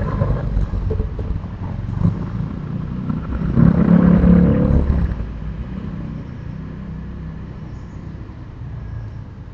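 A motor vehicle going by with a low rumble that swells to its loudest about four seconds in, then fades away.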